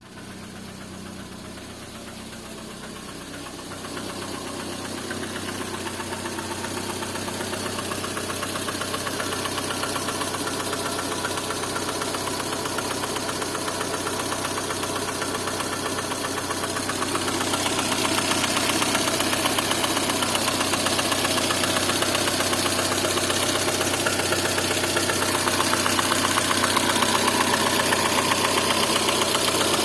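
Lada Kalina engine running with a rapid, steady knock in its note, the engine knock being shown as a fault. The sound grows louder, stepping up about four seconds in and again past the middle.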